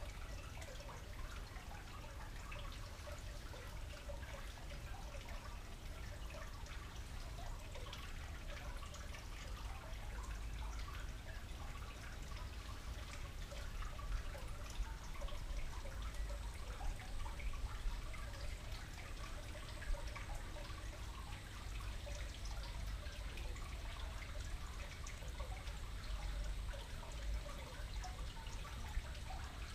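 Garden water fountain trickling and dripping steadily, with a low steady rumble underneath.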